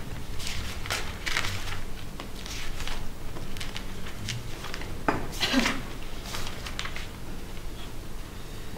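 China teacups and saucers clinking a few times as they are picked up and set down, the loudest clink about five seconds in.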